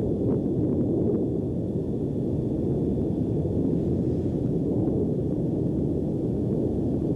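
Low, steady rumble of Mount Etna's South East Crater erupting, with a few faint cracks in the first second or so.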